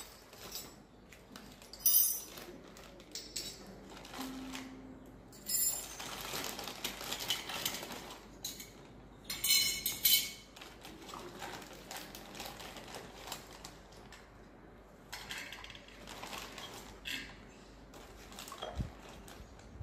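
Miniature stainless-steel toy kitchen utensils clinking against each other and being set down on a concrete floor: scattered light metallic clinks, the sharpest about two, five and ten seconds in.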